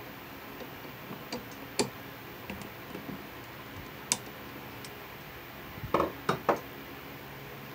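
Light, scattered clicks and ticks of pliers gripping and turning a plastic wire nut onto twisted 14-gauge copper wires, ending in a quick cluster of three or four sharper clicks about six seconds in.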